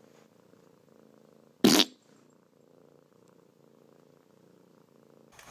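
A tabby cat purring faintly, broken once, about a second and a half in, by a short loud sound.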